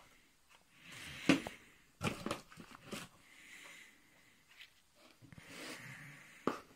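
Telescope eyepieces and their plastic cases being handled in a tissue-packed cardboard box: a few sharp clicks and knocks, the loudest about a second in, with soft rustling between.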